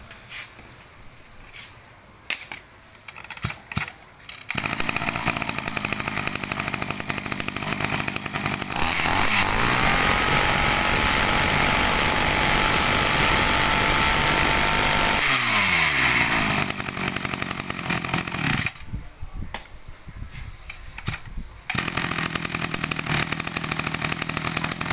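A 33 cc two-stroke brush cutter engine starts after a few handling clicks and runs at idle. It is revved up to a high, steady full-throttle pitch for about six seconds, drops back to idle, and cuts off. It runs again near the end.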